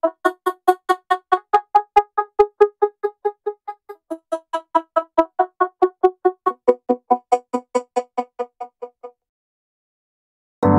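An Essential Phone ringtone playing on a Xiaomi Redmi 9: a fast, even run of short electronic notes, about five a second, with the pitch stepping up and down. It stops about nine seconds in. A new ringtone starts right at the end.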